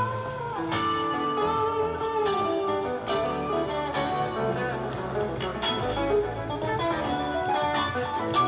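Live rock band playing an instrumental jam, with an electric guitar lead of sustained notes over the band. A note is bent up and back down near the start.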